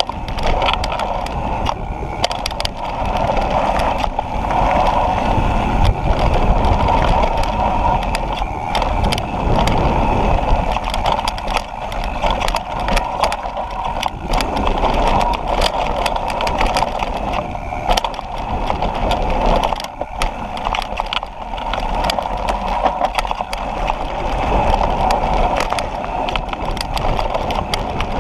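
Propain Tyee mountain bike descending a rough trail: steady wind rush and tyre roar on the mic, with frequent rattles and knocks from the bike as it runs over bumps.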